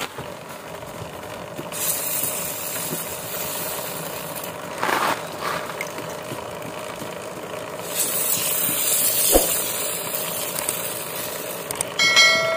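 Aerosol chain lube hissing onto a motorcycle's rear drive chain in two long sprays, with a short chime near the end.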